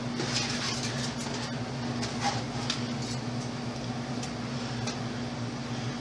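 Loose wires being pushed aside inside a metal PC case: a soft rustle with a few light clicks and taps, over a steady low hum.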